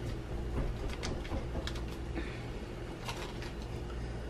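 A few short crinkles and rustles of a wrapper being peeled off a stick of butter, over a steady low hum.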